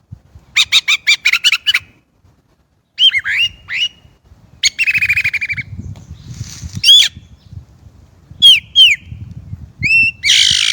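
Chinese blackbird singing a string of varied phrases separated by short pauses: a rapid run of notes, slurred whistles rising and falling, and a harsher chattering phrase.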